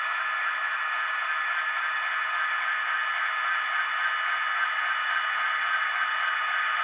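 HO scale model diesel locomotives running along the track: a steady hiss with a few steady whining tones over it, unchanged throughout, from the models' motors, gearing and wheels on the rails.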